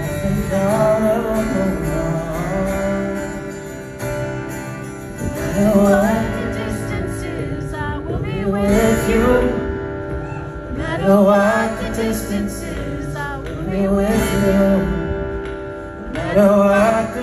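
Live solo acoustic performance: a steel-string acoustic guitar strummed under a male voice singing a slow melody through the PA.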